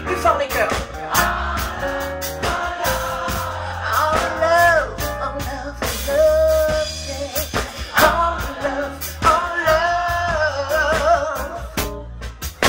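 A woman singing over a live band of keyboard, drum kit and bass guitar playing a jazzy zouk song.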